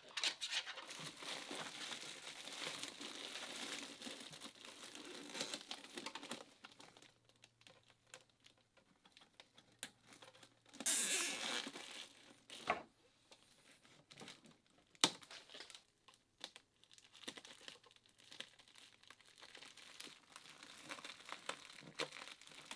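HVAC tape and flexible air-conditioner ducting crinkling and tearing as the tape is wrapped by hand around the duct joint. There is a louder burst of crinkling about eleven seconds in and a few sharp clicks after it.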